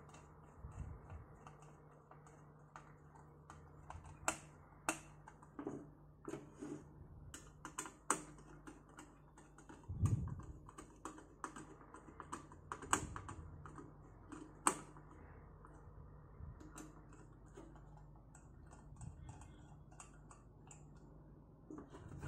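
Scattered sharp clicks and taps of plastic and metal as a CPU cooler fan is set onto a motherboard and fastened down, with a dull knock about ten seconds in.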